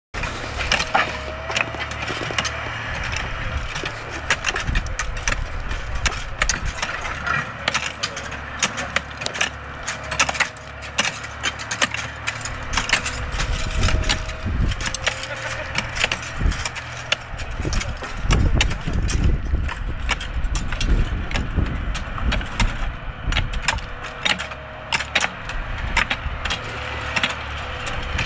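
Steel shovels and ballast forks scraping and clinking into railway track ballast stones, with many sharp strikes throughout, as workers dig out muddy, fouled ballast around the sleepers. A diesel excavator engine runs underneath with a low pulsing rumble.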